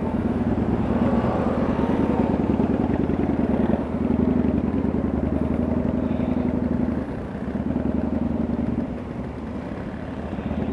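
Kawasaki Vulcan 900 cruiser's V-twin engine running under way. Its note steps down briefly about four seconds in and again about seven seconds in as the throttle eases, and it stays quieter near the end.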